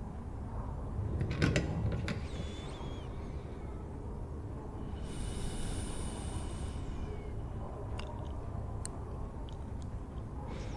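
Library ambience soundscape: a steady low rumble with scattered small clicks and knocks, and a longer scraping sound lasting about two seconds about halfway through.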